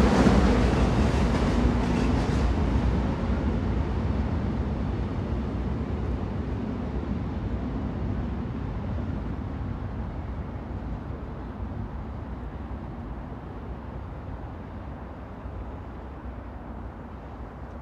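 Train rumbling past and then fading steadily into the distance. The high hiss dies away first, leaving a low rumble.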